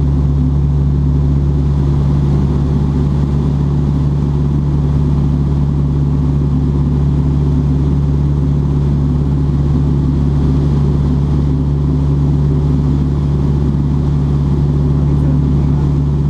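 Light aircraft's engine and propeller running steadily at cruise, heard from inside the cockpit as a constant deep hum.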